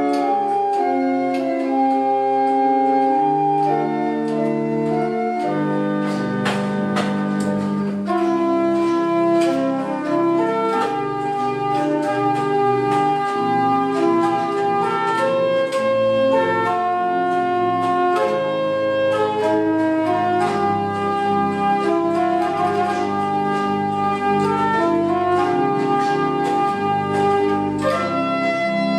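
Pipe organ playing a piece in several parts with held notes, a deeper bass line coming in about six seconds in.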